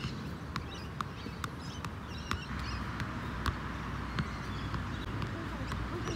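Soccer ball being juggled on the feet: sharp taps of the ball off the foot, about two a second, over wind rumble on the microphone, with birds chirping faintly.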